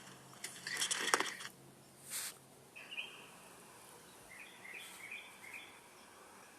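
A burst of rattling noise about a second in and a short hiss, then a few short high bird chirps.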